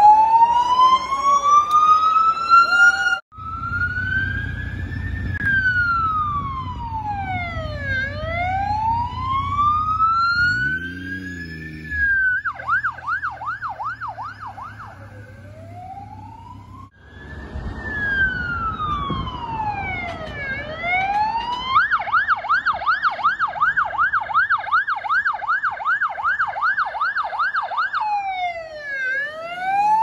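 Australian ambulance siren alternating between a slow wail, rising and falling over a few seconds, and a fast yelp of about four cycles a second. The recording cuts off abruptly twice, and a low traffic rumble runs under some passages.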